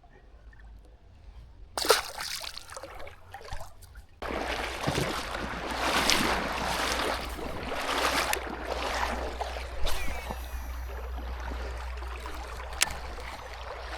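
Creek water splashing and trickling close to the microphone, starting abruptly about two seconds in and getting louder about four seconds in, with a few sharp knocks.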